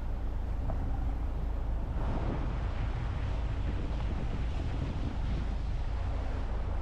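Motorboat engine running steadily, with water splashing and rushing along the hull. The splashing grows louder about two seconds in.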